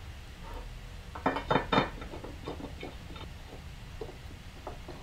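Light metal clinks and taps of a hand tool against the fuel tank and fittings of a Coleman 530 stove, with three sharper clinks about a second and a half in, then lighter scattered ticks as the tool is worked into the pump tube.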